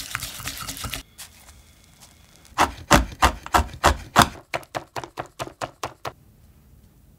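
A whisk stirring egg yolks in a glass bowl for about a second, then a knife chopping chocolate on a wooden cutting board: heavy chops about three a second, followed by a run of quicker, lighter strokes.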